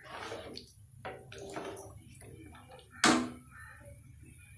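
Wooden spoon stirring thin sambar in an aluminium pot: irregular soft scraping and sloshing, with one sharper knock about three seconds in as the spoon is left resting against the pot.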